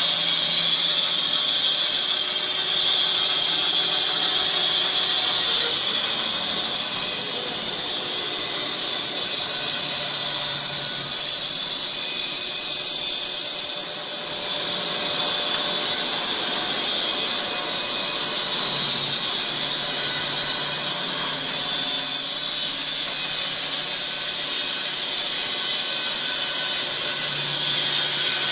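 Puma EA bandsaw mill's band blade sawing through a log: a loud, steady high-pitched hiss.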